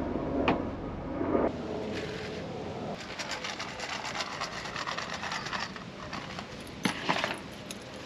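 Camping gear being handled at a truck's tailgate and storage tote: light clicks, scrapes and jingling, with a louder clatter about seven seconds in. Wind rumbles on the microphone for the first second and a half.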